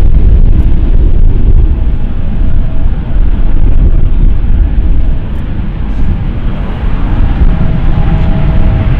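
Bombardier CRJ-900 regional jet's twin CF34 turbofans running at taxi power, with a faint whine that comes and goes, under a heavy low rumble of wind buffeting the microphone.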